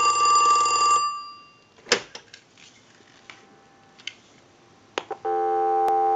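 Telephone bell ringing on a ring cycle, stopping about a second in. Then come several plastic clacks and clicks as the handset is lifted off the hookswitch. About five seconds in, a steady dial tone starts from the receiver, heard through an amplified pickup.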